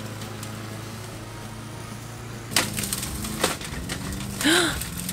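Pope petrol rotary push mower running steadily, then its blade strikes twigs and dirt among hedge clippings with a sharp crack about two and a half seconds in, followed by a run of clattering and ticking as it throws up dust.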